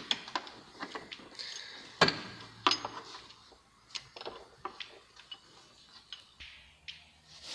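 Irregular sharp metallic clicks and taps from a small metal bracket and its bolt being handled and fitted into place in a car's engine bay, with one louder knock about two seconds in.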